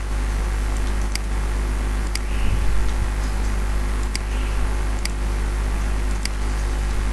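Steady low electrical hum with hiss, and five sharp computer-mouse clicks spread through it.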